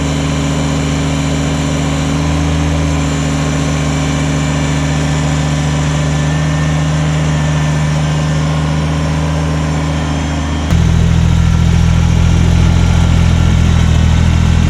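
Tractor engine running steadily; about eleven seconds in its note drops and it gets louder.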